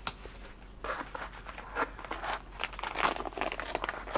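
Plastic parts bag crinkling as it is lifted out of a box and handled, in irregular crackles that start about a second in and grow busier.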